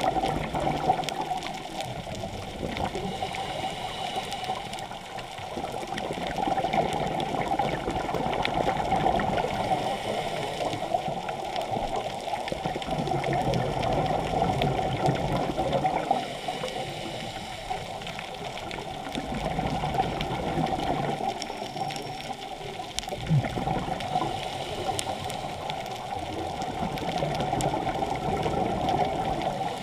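Muffled underwater water noise heard through a GoPro's housing, swelling and easing every few seconds.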